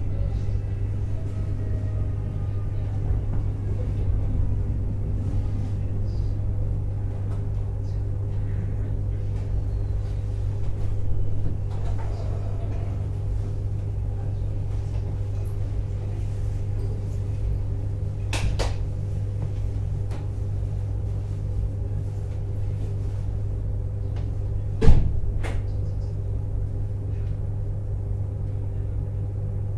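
JR East 719 series 5000-subseries electric train running, heard from inside the car: a steady low rumble with a steady hum, faint falling whines in the first few seconds, a sharp click past the middle and one loud knock near the end.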